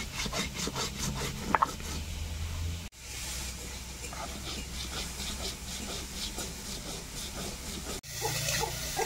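Dried red chillies being ground on a flat stone slab with a stone roller (shil-nora): a rhythmic rasping scrape, about four strokes a second. About a second before the end it changes to a metal spatula scraping and stirring in a wok.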